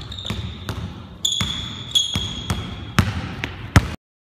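Basketball dribbled hard and fast on a hardwood gym floor in an uneven rhythm, with sneakers squeaking sharply on the boards as the player cuts; the sound cuts off suddenly near the end.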